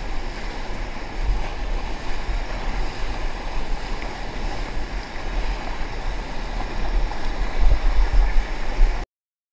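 Whitewater churning and rushing in a river hole around a kayak that is being held in it, close on the camera, with a heavy low rumble. It cuts off suddenly near the end.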